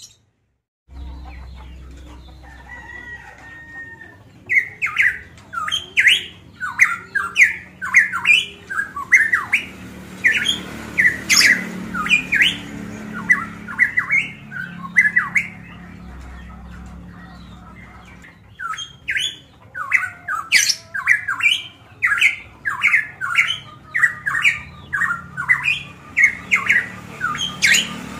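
Pitohui (cucak emas papua) singing loud, rapid strings of short, sharp whistled notes, a few a second. The song starts about four seconds in, pauses for a few seconds in the middle, then resumes.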